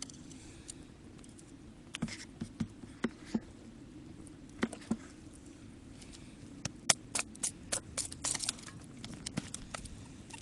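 Wood campfire crackling: irregular sharp pops and snaps, coming thicker about seven to nine seconds in.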